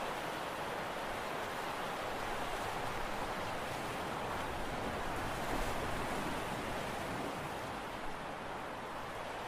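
Steady, even rushing of sea waves and wind by a concrete tetrapod breakwater, with no distinct events.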